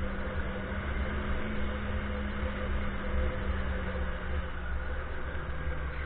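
Motorcycle engine running under way in city traffic, with wind rumble on the microphone. The engine note holds steady, then drops a little about four seconds in as the rider eases off.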